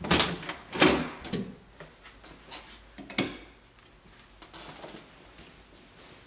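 An interior door's knob and latch clicking and knocking as the door is opened, with a few loud knocks in the first second or so and one sharp click about three seconds in.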